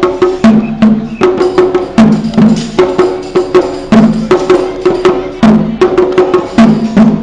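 Taiko-style drum ensemble playing a fast rhythm: sharp wooden stick clicks mixed with pitched drum tones, in a pattern that repeats about every second and a half.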